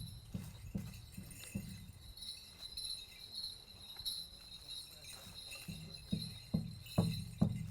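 A drum beaten in a steady rhythm, about two and a half beats a second, growing louder over the last second or so.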